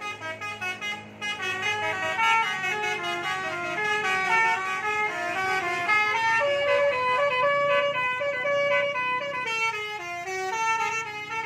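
Multi-tone 'telolet' bus horn of the Basuri type playing a melody: a quick run of held horn notes stepping up and down in pitch, with a longer note repeated several times past the middle.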